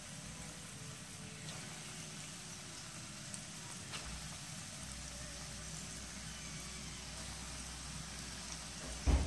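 Flour-coated chicken pieces deep-frying in hot oil in a wok: a steady bubbling sizzle. A faint low hum comes in about four seconds in, and there is a short low thump near the end.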